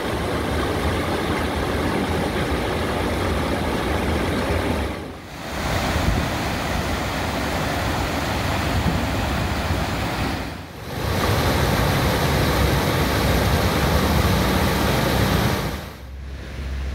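Storm runoff rushing over a kerb and pouring into a street drain grate, a steady loud rush of water. A van drives through the flooded street, its tyres sloshing through the water with the engine running underneath. The rush drops away briefly twice.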